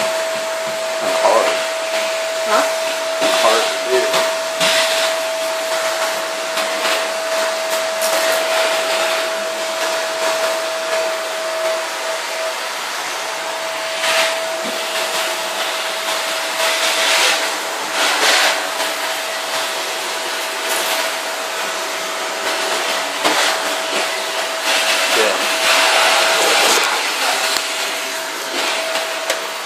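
A steady motor-like whir with a constant whine, with irregular rubbing and knocking noises close to the microphone as fingers brush against it.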